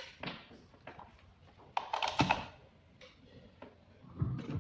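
Scattered light clicks and knocks of tools and parts being handled on a workbench, with a louder clatter about two seconds in and a dull thump near the end.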